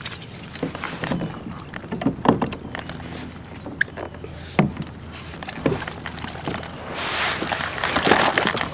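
A kayak paddle at work on a plastic kayak: scattered knocks and clatter against the hull, and a longer wash of splashing water near the end.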